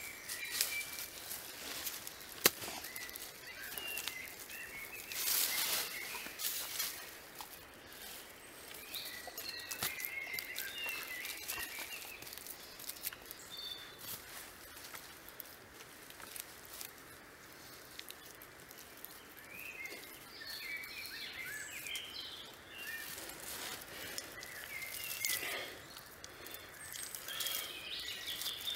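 Songbirds calling on and off, with intermittent rustling, patting and soft knocks as wet clay mixed with dry grass is worked and pressed by hand against logs. One sharp click about two and a half seconds in.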